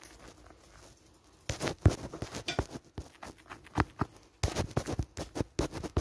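Background noise: a rapid, irregular run of knocks and clatter that starts about a second and a half in, with a loud knock just before two seconds and a second cluster in the last second and a half.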